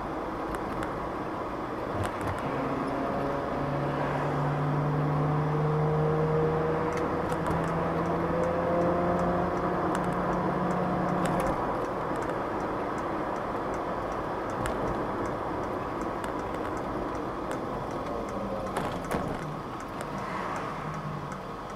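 In-cabin sound of a 1989 Mercedes 300 TE 4MATIC with its 3.0-litre straight-six, driving in town. Over road and engine noise, a whining howl rises slowly in pitch for about ten seconds as the car gathers speed, then fades into steady rolling noise as it eases off towards the traffic ahead. The owner attributes that howl to the rear differential, not the engine.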